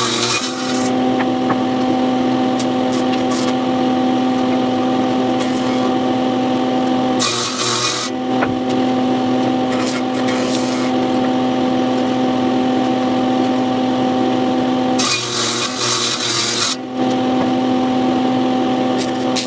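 An electric power tool's motor runs with a steady hum. Twice it gives way to loud hissing cutting noise, briefly about seven seconds in and for nearly two seconds about fifteen seconds in, as the tool works wood.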